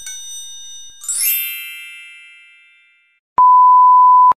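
Cartoon sound effects. A bright 'idea' chime of ringing bell tones is followed about a second in by a sparkling, glittery chime that slowly fades. Near the end comes a loud, steady, pure electronic beep lasting about a second that cuts off suddenly.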